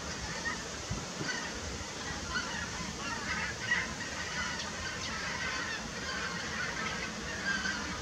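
A migrating flock of wild geese calling in flight, many short honking calls overlapping throughout.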